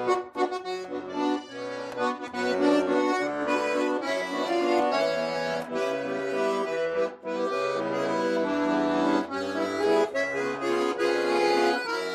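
Instrumental break in a sung pop song: held chords and a melody line over a bass line that steps from note to note, with no singing.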